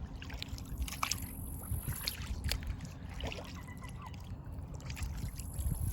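Water trickling and splashing around a small paddled boat, with a few short splashes, over a steady low rumble.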